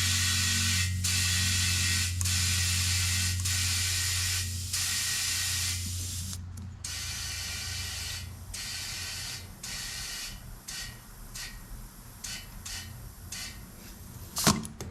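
Compressed air hissing from an air nozzle in a series of bursts, long ones for about the first six seconds and then shorter, quicker spurts, over a steady low hum. A sharp click near the end.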